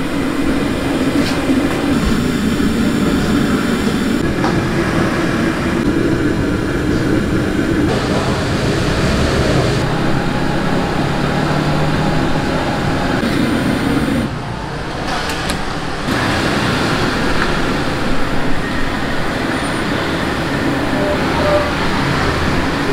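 Commercial stainless-steel steam cabinet running at full steam: a steady, loud rumble and hiss from its burner and boiling water, which dips briefly about two-thirds of the way through.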